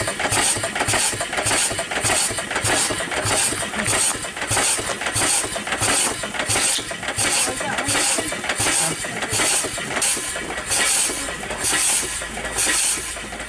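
1880 Payne & Son horizontal steam engine running on steam, its exhaust chuffing evenly about twice a second over a hiss of escaping steam.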